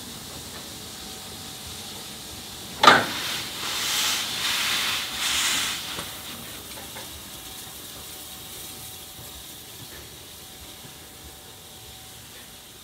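Narrow-gauge steam locomotive 99 7247-2 blowing off steam as it moves, with its cylinder drain cocks open. A sudden loud blast of steam about three seconds in is followed by a couple of seconds of pulsing hiss, which then dies away to a low background.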